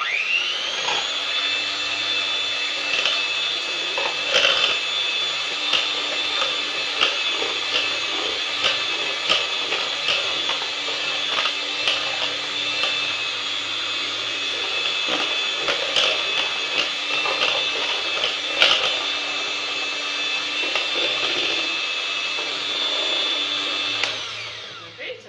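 Electric hand mixer running steadily at speed, beating eggs in a bowl until smooth, with occasional clicks. It starts abruptly and winds down to a stop near the end.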